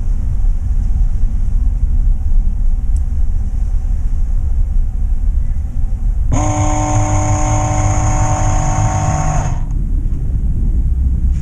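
Low, steady rumble of a vehicle driving slowly on a paved forest road, with wind buffeting the microphone. About six seconds in, a steady multi-pitched tone starts abruptly and cuts off about three seconds later.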